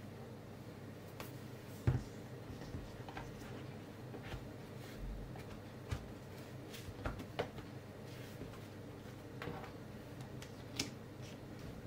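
Samsung Galaxy Tab S6 Lite being pressed into a soft pink plastic bumper case: scattered light clicks, taps and knocks of handling, the loudest about two seconds in.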